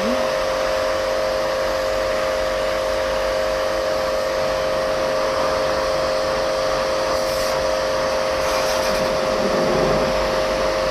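An electric motor running steadily, a constant high whine over an even rush of air.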